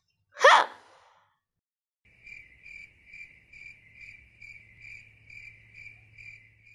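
A short rising whoosh about half a second in, then crickets chirping steadily, about two chirps a second, from about two seconds in, over a faint low hum.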